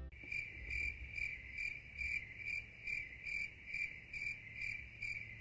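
Crickets chirping: an even run of high, clear chirps, about two a second, over a faint low hum.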